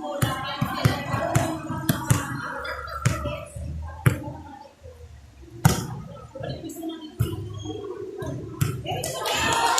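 A volleyball being struck during a rally: a string of sharp, irregular smacks from hits and digs, the loudest a little before the middle, over the chatter and shouts of players and onlookers.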